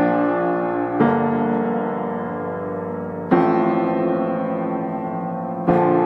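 Background piano music: slow, sustained chords, a new one struck every one to two and a half seconds and left to ring and fade.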